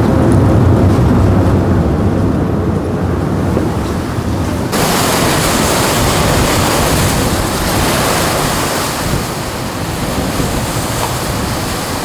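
Wind buffeting the microphone over rushing sea water on a running boat. About five seconds in, the sound switches abruptly from a low rumble to a brighter, hissing rush.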